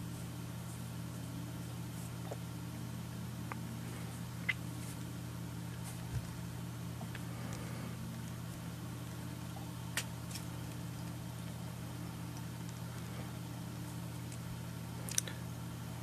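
Steady low hum of room tone, with four faint short clicks spread through it.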